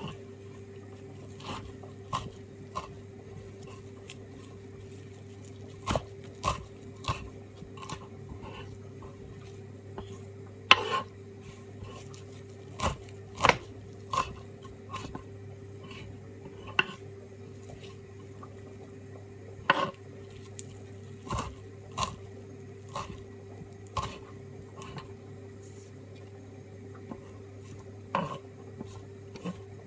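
Kitchen knife chopping fresh parsley on a wooden cutting board: irregular sharp knocks of the blade on the board, about one a second with short runs of quicker strokes, over a steady low hum.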